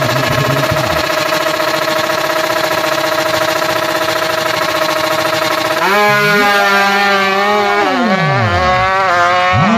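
Two-stroke 155cc drag bike engine held at high revs on the start line. About six seconds in it launches, its pitch climbing and dropping through the gear changes as it pulls away down the strip.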